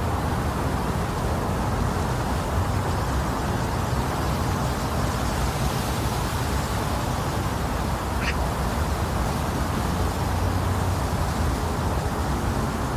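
Steady rushing white noise, heaviest in the low and middle range, made to imitate the sound of the womb. A brief faint high blip about eight seconds in.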